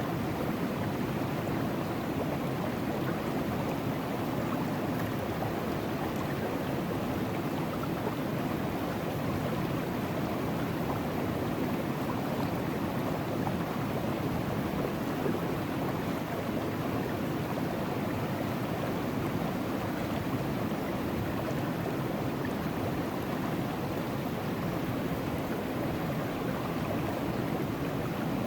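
Steady rushing of river water as the current runs through a sluice box, an even noise that does not change.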